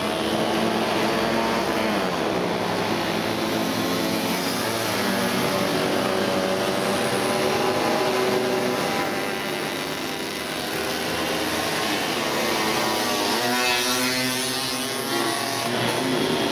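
A stream of vintage 50 cc two-stroke mopeds riding past one after another, many engines buzzing at once at overlapping, shifting pitches. Near the end one machine close by rises and falls sharply in pitch as it goes past.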